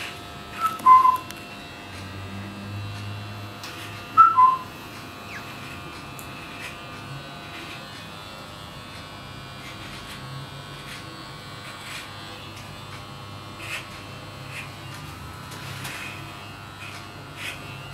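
Electric hair trimmer buzzing steadily as it trims a beard. Two short falling two-note whistles, the loudest sounds, come about a second in and again about four seconds in.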